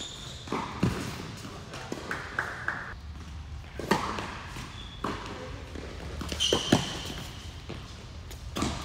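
Tennis ball being struck by rackets and bouncing on an indoor hard court in a large hall, a sharp hit every few seconds, with a serve struck about four seconds in.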